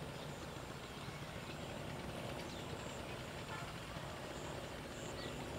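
Diesel-hauled passenger train running past across open fields, its locomotive engine a steady low rumble.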